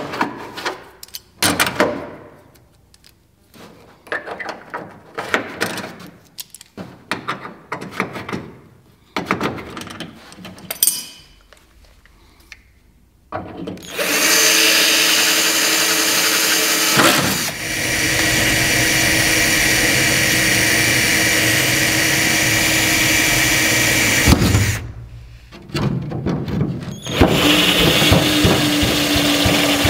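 Scattered clicks and knocks of tool handling. From about halfway in, a cordless drill runs steadily for about ten seconds, drilling holes through the aircraft cowling for quarter-turn cam-lock fasteners. Near the end it runs again briefly as a step bit opens a hole to 15/32 inch.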